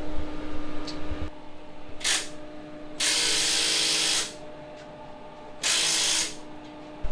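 Welding arc struck in three short bursts, the longest about a second, as a cut-down socket is welded onto steel roll cage tubing. A steady low hum runs underneath.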